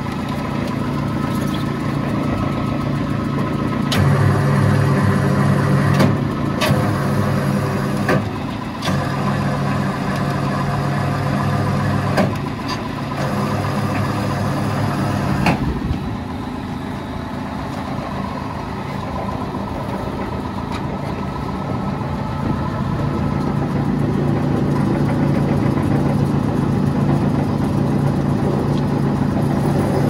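Tractor engine running steadily, driving a PTO wood chipper, with several sharp knocks and clatters in the first half.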